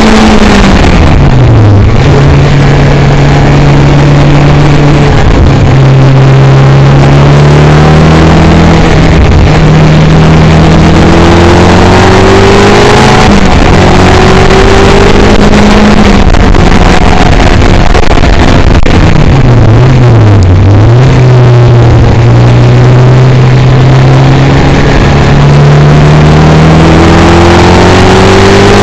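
Caterham sports car engine heard from its open cockpit at speed, over a loud rush of wind and road noise. The engine note holds and climbs slowly, dips briefly a few times, and sharply falls and jumps back up about two seconds in and again about twenty seconds in.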